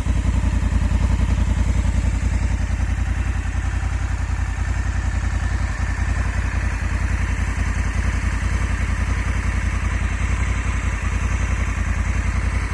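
Honda CRF1100L Africa Twin DCT's parallel-twin engine idling steadily, with an even low throb.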